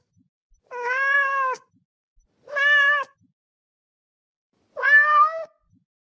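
Domestic cat meowing three times, each meow short and fairly level in pitch, with pauses of about a second between them.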